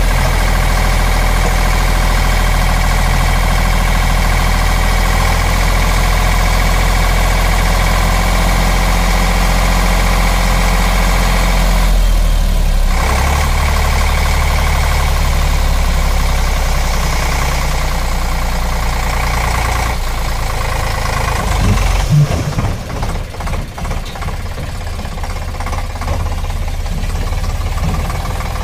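Eicher 485 tractor's three-cylinder air-cooled diesel engine running steadily while its hydraulics tip a loaded trolley. A little past twenty seconds in, the engine note drops and turns uneven.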